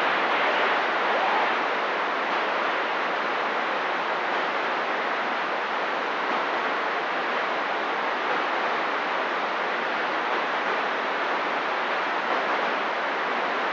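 Steady hiss of CB radio static from the receiver's speaker with the squelch open and no one transmitting.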